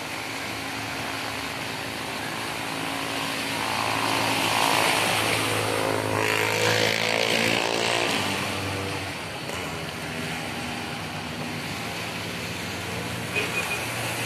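A motor vehicle's engine passes close by, growing louder and then falling in pitch as it goes past about halfway through, over the steady wash of small waves on the shore.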